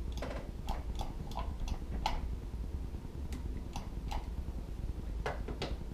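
Battery spot welder firing as its foot pedal is pressed, with the welding pen held on a lithium cell: about ten sharp clicks at uneven intervals over a steady low hum.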